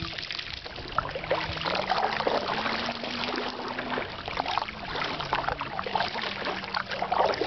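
Double-bladed kayak paddles dipping and pulling through calm river water, with splashing and water dribbling off the raised blades between strokes. A faint steady low hum lies underneath.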